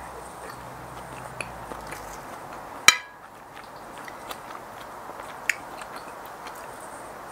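Metal spoon clinking and scraping against a plate during a meal, with chewing between; two sharp clinks stand out, about three seconds in and about five and a half seconds in.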